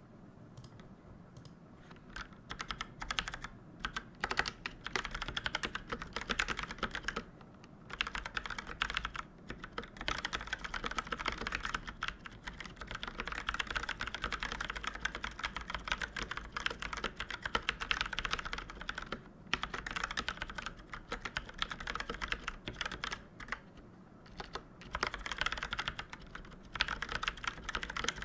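Typing on a mechanical keyboard with Outemu Purple 62 g tactile switches: a fast, continuous run of key clicks and bottom-outs, sparse at first and with a couple of brief pauses.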